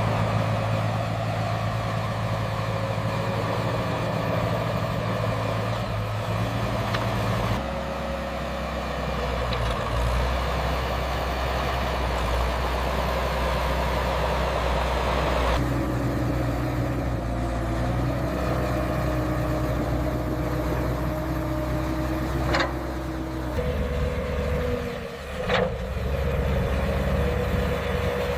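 Diesel engines of heavy construction machinery running steadily, the engine note switching abruptly three times. Two sharp clicks come near the end.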